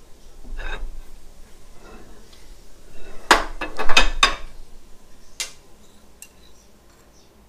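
Sharp metallic clinks and knocks from a small hand arbor press and an aluminium pepper-grinder body handled on the press's steel plate. A quick run of clinks about three to four seconds in is the loudest part, with single clicks before and after.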